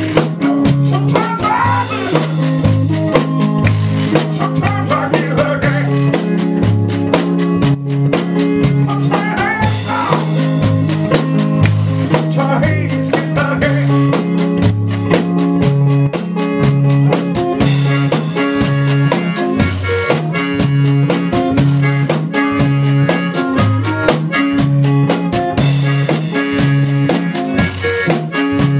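A country-blues trio playing live: an acoustic guitar picked with a steady thumbed bass line, a drum kit, and a washboard scraped and struck in a fast, steady rhythm.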